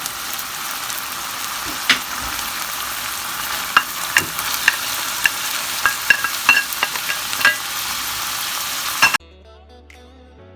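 Cooked rice being stir-fried with vegetables in hot oil: a steady sizzle with a spatula clicking and scraping against the pan now and then. About nine seconds in the sizzle cuts off and soft background music takes over.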